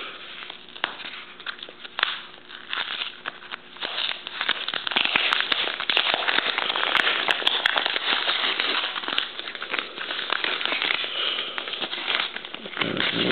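Tape being picked at and peeled off a paper envelope, the tape and paper tearing by hand in many small rapid crackles, thickest from about four seconds in.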